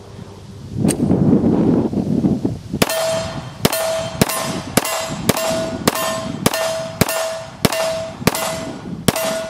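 Smith & Wesson M&P9c 9mm subcompact pistol firing a steady string of about eleven shots, starting about three seconds in, roughly one every half second or so. Each shot is followed by the ring of a hit on a steel plate target.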